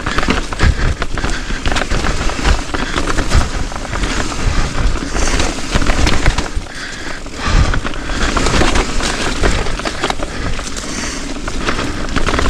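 Continuous loud clattering and rattling of a ride down a rough, rocky trail, dense with small knocks and jolts, over a heavy low rumble of wind buffeting the camera.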